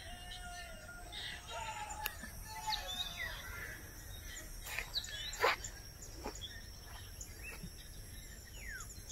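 Birds chirping and calling over a steady outdoor background noise, with several short, sharp falling calls in the second half.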